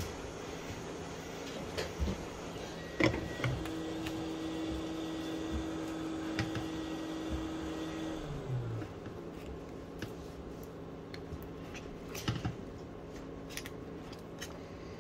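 Handling noises as a phone's glass back is worked with a suction cup and a playing card: a few sharp clicks and knocks, the loudest about three seconds in, over a steady low hum. A steady tone runs from about three and a half to eight seconds in and ends with a short falling glide.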